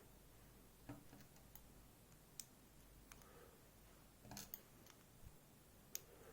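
A few faint, scattered clicks of small lock parts being handled as the driver pins are taken out of a Goal Z pin-tumbler cylinder.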